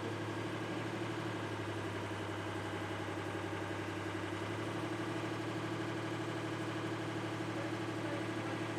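An engine idling steadily, a constant even hum.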